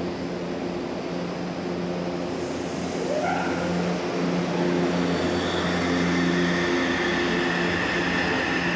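Electric metro train pulling out of the station: the standing train hums steadily, a hiss starts about two seconds in, and then the traction motors give a rising whine as it accelerates away.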